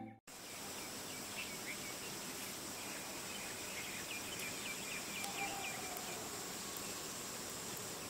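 Common tailorbird calling: scattered short, high chirps, then a quick run of about ten faint notes around four to five seconds in, over steady outdoor hiss with insects.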